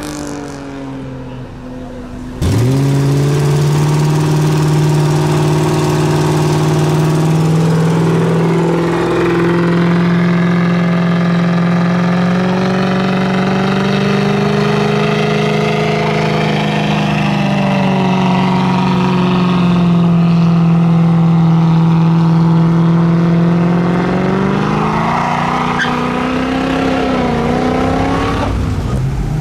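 Car engine held at high, steady revs for about twenty seconds, its pitch drifting slowly up and back down, with the revs wavering near the end. A quieter stretch comes first and cuts off sharply about two seconds in.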